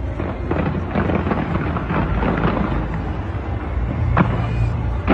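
Fireworks going off: a dense run of crackling bangs through the first half, then one sharp single bang about four seconds in, over a continuous low rumble.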